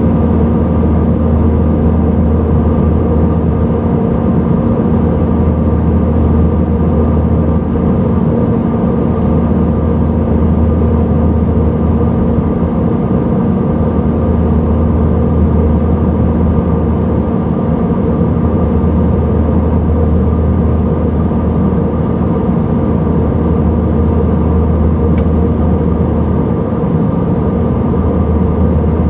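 Steady cabin drone of an Airbus A321 airliner in cruise flight: jet engine and airflow noise, a constant low hum with a few steady tones over it.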